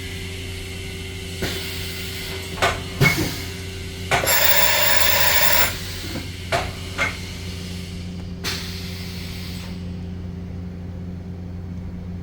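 CNC vertical machining center powered up, with a steady hum. A few sharp clicks and clunks come through the first half, and a loud hiss lasting about a second and a half starts about four seconds in. A shorter, fainter hiss follows near the end.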